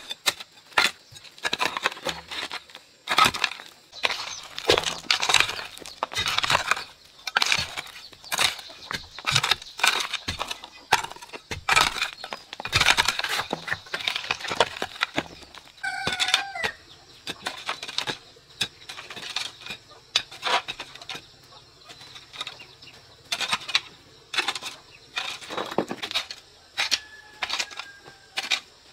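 Irregular series of sharp knocks and taps, several a second at times. A chicken calls once with a wavering, pitched call about halfway through.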